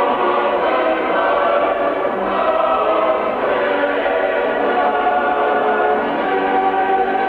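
Choral music: voices holding long sustained chords that shift slowly from one to the next.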